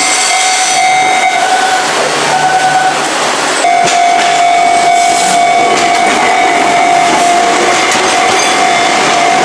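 A Japanese level-crossing alarm rings with a steady high tone. From about four seconds in, an Enoden (Enoshima Electric Railway) train runs over the crossing, adding wheel-and-rail noise with a few sharp clacks.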